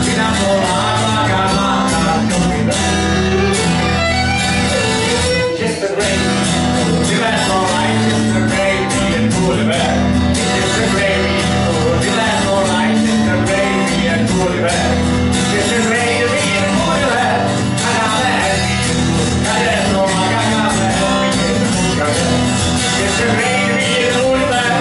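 Live acoustic music: a fiddle and an acoustic guitar playing a tune together.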